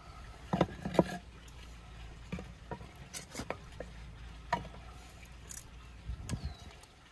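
Split firewood logs knocking and clattering against each other as they are laid one at a time into a grill's firebox, with the loudest knocks about a second in.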